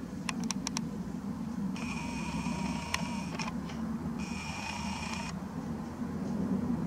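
Nikon Coolpix P900's lens zoom motor whirring in two runs of a second or so each, zooming out and then back in, preceded by four quick clicks. A low steady hum lies underneath.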